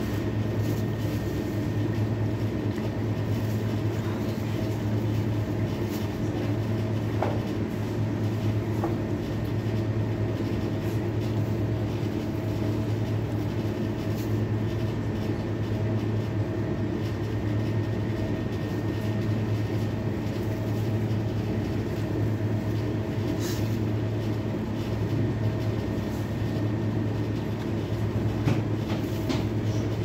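Steady drone of a kitchen extractor-hood fan, with a few faint crunches from someone chewing.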